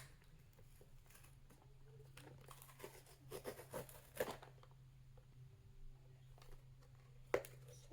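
Faint crinkling and rustling of toy packaging being handled, with a cluster of soft clicks and crackles in the middle and one more near the end.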